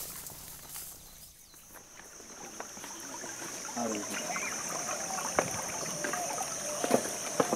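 A steady, high insect buzz starts about two seconds in, with footsteps on rocks and a few sharp clicks in the second half.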